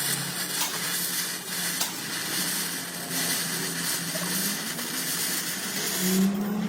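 Steady crackling hiss from metalwork on a truck chassis frame, starting abruptly and cutting off about six seconds in, over a steady low hum.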